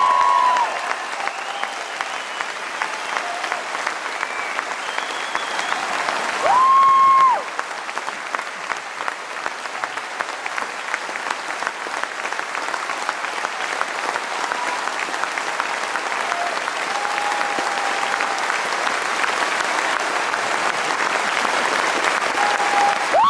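Theatre audience applauding steadily. A loud held high note sounds briefly about six and a half seconds in.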